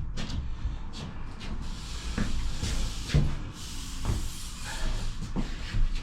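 Sheet of plasterboard being handled into position against a wall: the board scrapes, with several dull knocks.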